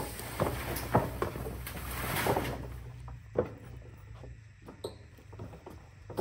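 Boots clomping and knocking on a wooden trailer deck and its metal mesh ramp, with the scrape of a hog carcass dragged onto the deck. The knocks come thick in the first three seconds and thin out after.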